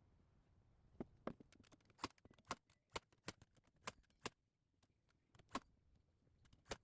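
Light, sharp knocks and clicks of work on the timber dog-bed frame, about ten of them at uneven intervals, with a short gap a little past the middle.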